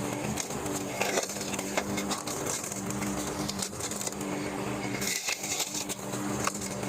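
Lawnmower engine running steadily while its blade chops tree limbs, with irregular clattering and cracking of wood pieces throughout.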